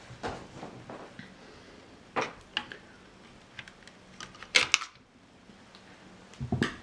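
Scattered clicks and knocks of a graphics card being handled and pulled from its motherboard slot. The loudest is a quick double click about four and a half seconds in.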